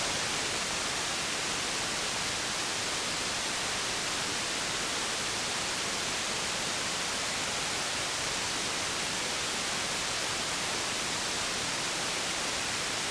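Steady hiss of radio static from a receiver, with no station coming through between transmissions.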